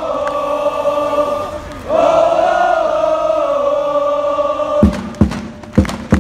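Crowd of football supporters singing a chant in unison, two long held notes, followed near the end by a few sharp beats.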